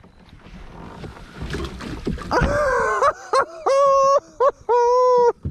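A man's excited, drawn-out yells of delight over a big bass: a falling cry about halfway through, then two long, loud held shouts near the end, after some rustling and water noise.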